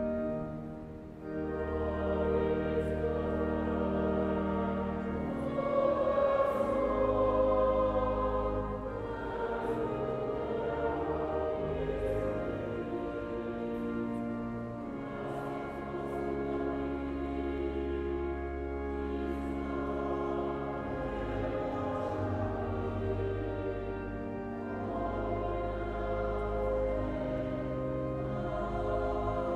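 Church choir singing with sustained held notes, accompanied by a pipe organ playing steady low bass notes under the voices.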